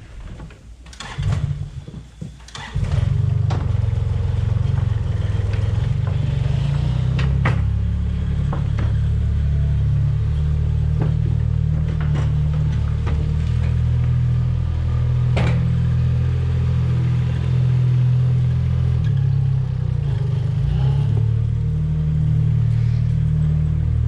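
Compact loader's engine running steadily under load, coming up to a loud, even drone about three seconds in, with occasional sharp knocks.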